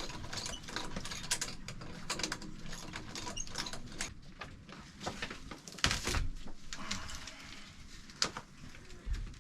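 Hand tools and metal parts clinking, scraping and knocking irregularly while the boat's exhaust is being taken apart, with a heavier thump about six seconds in and another near the end.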